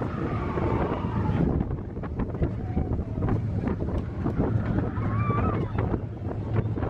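Steady low rumble of a moving ride vehicle, with wind buffeting the microphone and scattered clacks and rattles.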